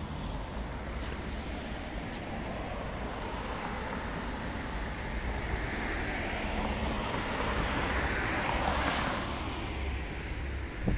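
Outdoor street traffic noise, with a vehicle passing by in the second half: its noise rises and then fades away, over a steady low rumble.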